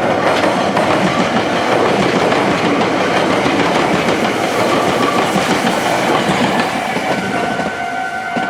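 Meitetsu electric train running past, its wheels clattering over the rail joints and junction points in a dense clickety-clack. About seven seconds in the clatter eases and the level crossing's warning bell comes through as a steady two-note ringing.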